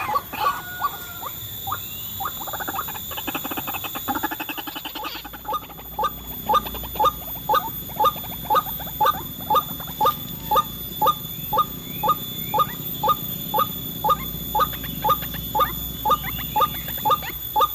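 White-breasted waterhen (ruak-ruak) calls: a jumble of notes and a rapid trill at first, then from about six seconds in a steady series of short, rising "kwak" notes, about two a second.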